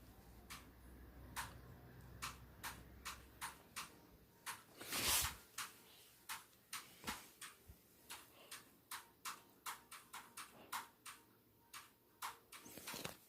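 Steady ticking, about two to three sharp ticks a second, with one louder rush of noise about five seconds in.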